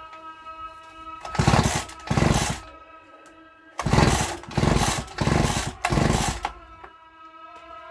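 Small two-stroke chainsaw engine being cranked with its pull-starter cord, six quick pulls (two, then a short pause, then four) that turn it over without it starting; the stop switch was left in the off position.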